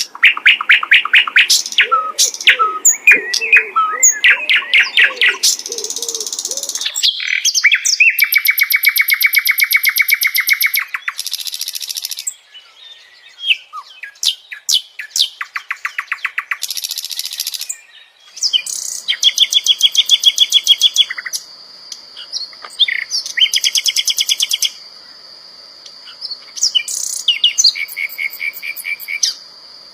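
Sikatan londo flycatcher singing loudly: fast series of chirps and whistled notes broken up by rapid buzzy trills a second or two long. In the second half a steady high whine runs underneath the song.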